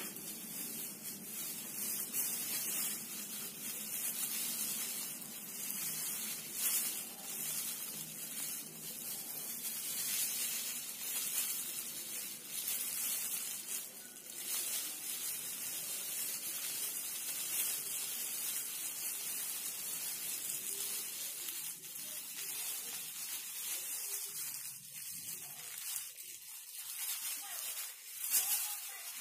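Steady rustling and rubbing hiss of plastic-gloved hands working hair onto perm rods, with frequent small scratchy touches.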